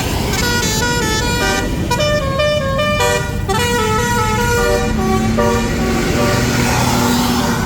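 Bus 'telolet basuri' musical air horn playing a quick melody of stepped notes over the low rumble of the bus engine. The tune gives way to a lower steady tone about five and a half seconds in.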